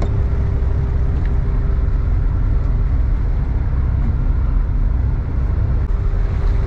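A boat's engine running steadily under way: a continuous low rumble with a steady hum over it, and an even rushing noise throughout.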